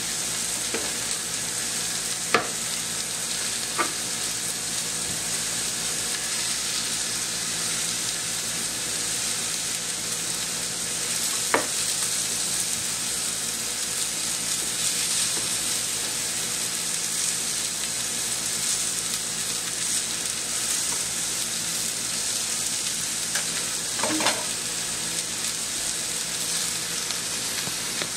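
Steady sizzle of food frying in a hot pan, with four sharp clicks scattered through it.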